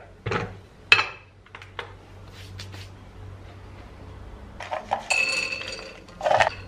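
A ceramic dog bowl clinks as it is set on a glass kitchen scale, with a few lighter knocks after. About four and a half seconds in, dry kibble is poured from a plastic container into the bowl, rattling against the ceramic with a slight ringing.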